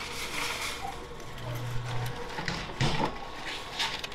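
Store background noise: a low electric hum that stops about two seconds in, followed by a few clicks and knocks.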